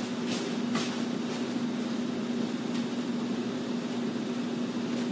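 Room tone: a steady mechanical hum with a faint hiss, and a few faint knocks in the first second and a half.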